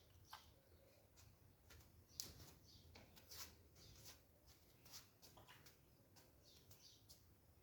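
Near silence: room tone with faint, scattered clicks and ticks at an uneven pace.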